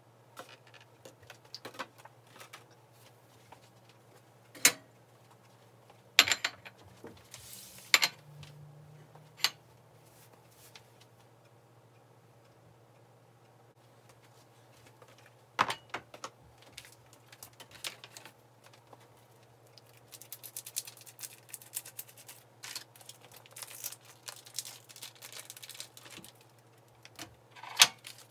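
Plastic food packaging and kitchenware handled on a counter, sped up to double speed: scattered clicks and knocks as a plastic tray, a plate and a cutting board are set down, and a stretch of dense crinkling of plastic wrap about two-thirds of the way through, over a faint low hum.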